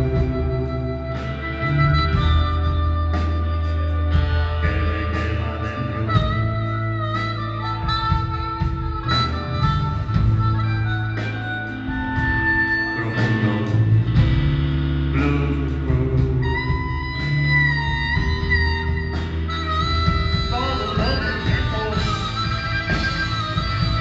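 Live blues band playing electric guitar, bass and drums, with long held harmonica notes over a steady bass line and regular drum hits.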